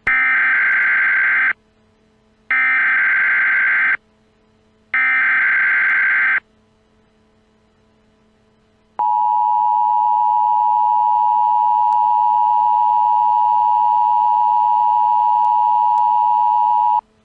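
Emergency Alert System SAME header: three bursts of warbling digital data tones, each about a second and a half long, about a second apart. About nine seconds in, the steady dual-tone EAS attention signal starts and holds for about eight seconds before cutting off sharply, marking the start of an emergency alert message.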